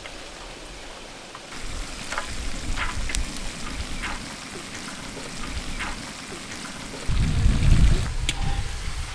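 Spaghetti and spiced sauce sizzling in a wok over a wood fire as handfuls of boiled noodles are dropped in, a steady hiss with scattered pops. A louder low rumble about seven seconds in lasts a second or so.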